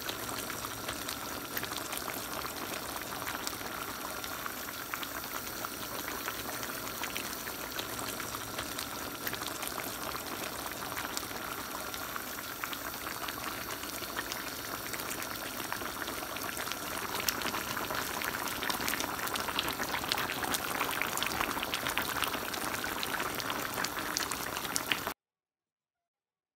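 Pork pochero stew boiling in a shallow pan: a steady bubbling with many small pops. It grows a little louder about two-thirds of the way through, then stops abruptly shortly before the end.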